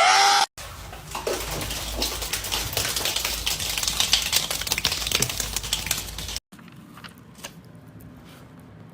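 A cat's short rising meow. It breaks off into rapid, dense clicking and clattering that lasts about six seconds, then stops suddenly, leaving fainter noise with a few scattered clicks.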